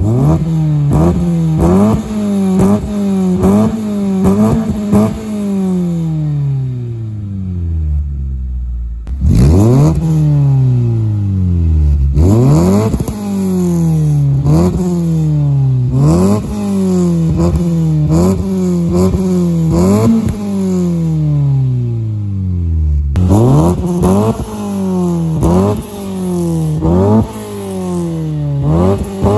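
Toyota Corolla AE111's 4A-FE four-cylinder engine free-revving through a newly fitted Powerflow exhaust, heard at the tailpipe. There are repeated throttle blips, each climbing quickly in pitch and falling back toward idle, and some longer revs that fall away slowly.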